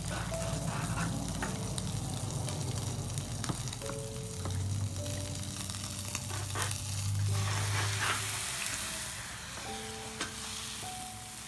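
Pieces of pork and shrimp sizzling in hot pork lard in a small frying pan over a gas burner, with background music of held notes playing over it.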